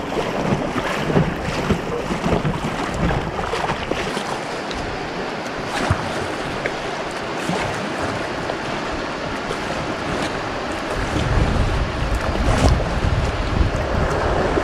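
River water rushing and splashing around the bow of an inflatable kayak, with scattered small splashes. Wind rumbles on the microphone from about eleven seconds in.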